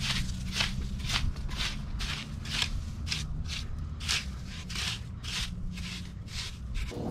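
Metal cockle rake scraping through wet, gritty beach sand in short repeated strokes, about two to three a second.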